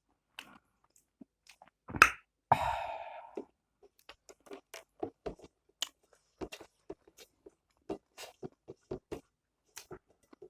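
Close-miked chewing of food: a run of short wet clicks and light crunches, two or three a second, with one louder sharp click about two seconds in followed by a brief rasping sound.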